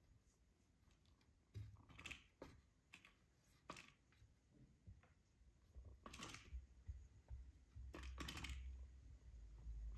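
Faint, scattered clicks and scrapes of a kitten's paws and claws on a plastic cat-and-mouse track toy and its scratch pad, with a low rumble near the end.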